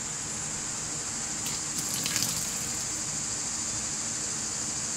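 Engine coolant gushing and splashing out of a disconnected radiator hose while the engine idles, showing that the water pump is pushing coolant through that line. A steady low hum lies underneath, with a slight swell about two seconds in.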